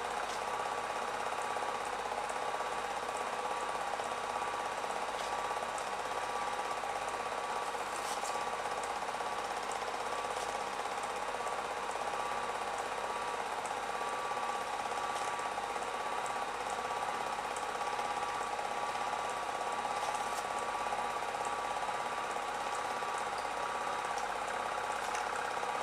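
Steady mechanical whirring and rattle of a running 8mm film projector, with a constant hum and occasional faint ticks.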